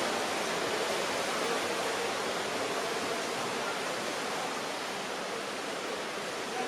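Steady, echoing wash of water noise in a swimming pool hall during water polo play, with indistinct voices mixed in.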